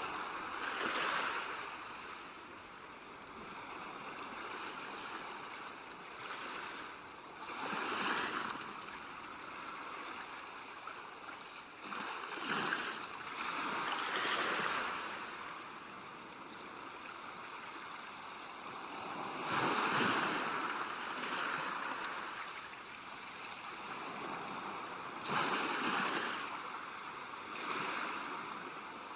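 Gentle sea waves breaking on a shore, a hiss of water that swells into a wash about every six seconds and then ebbs.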